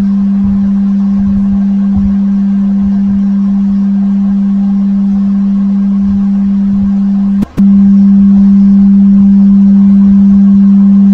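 Steady low tone played through an iPhone's loudspeaker by the Water Eject shortcut, meant to vibrate water out of the speaker grille. About seven and a half seconds in it cuts out for a moment with a click and comes back louder.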